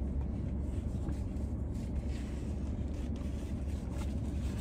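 Steady low drone inside a parked car's cabin: the heater blowing with the engine running, with a few faint rustles and clicks on top.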